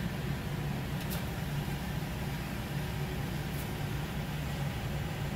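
Steady low machine hum with an even hiss over it, and a couple of faint ticks.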